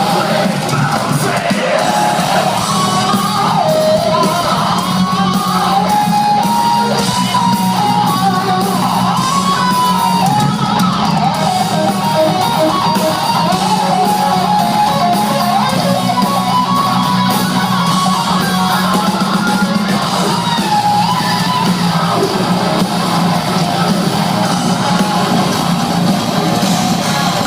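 Melodic death metal band playing live: distorted electric guitars carry a melody over bass and drums, with shouted vocals at times, loud and steady throughout in a live-room recording.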